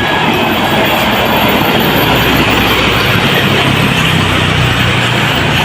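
Road vehicle passing close by with loud, steady engine and tyre noise. A low engine hum grows stronger from about halfway through.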